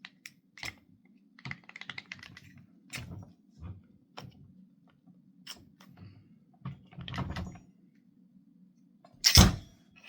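Scattered small metallic clicks and rattles of SKS rifle parts being handled during disassembly, as the little rod at the front is pulled out, with one louder clack about nine seconds in.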